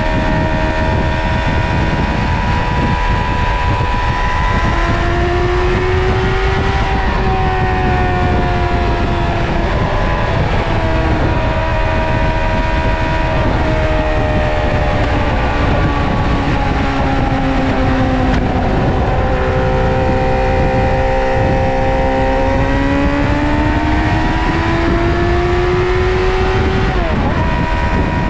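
Suzuki GSX-R 600 SRAD's inline-four engine running under way, its note climbing and easing off several times, with a sharper drop near the end, over a steady low rush of noise.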